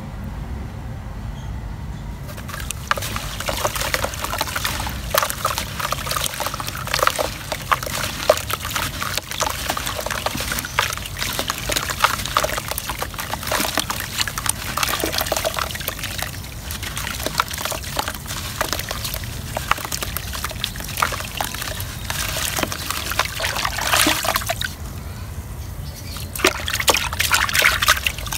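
A block of dry red dirt is dipped and crumbled by hand in a bucket of water. Water sloshes and dribbles, with dense crackling as the soaked soil breaks apart, and it is worked into a wet, muddy paste near the end.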